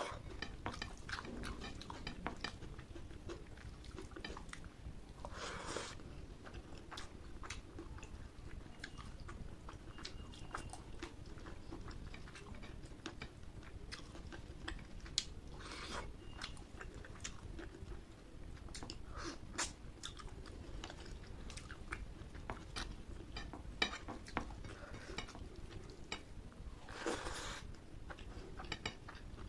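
Close-up eating sounds of curry and rice: chewing and biting with many short wet mouth clicks, and a few longer, louder smacking or slurping bursts.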